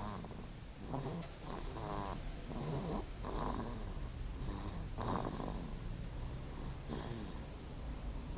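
A sleeping baby snoring: a string of short snores, about one a second, some with a thin high whistle over them.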